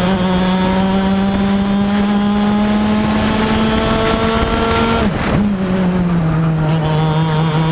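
Racing kart engine heard onboard at race speed. Its pitch climbs slowly down a straight, drops sharply about five seconds in as the driver lifts off for the corner, then holds steady at a lower pitch.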